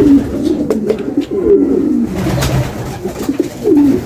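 A flock of domestic pigeons cooing together in their loft, many low coos overlapping without a break, with a few sharp clicks mixed in.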